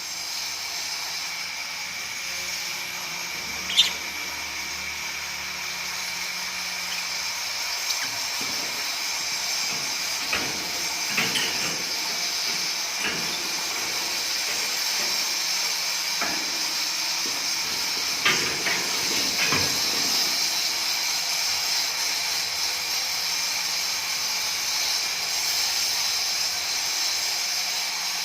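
Steady high-pitched hiss with a few short, sharp lovebird chirps, about four of them, scattered through it.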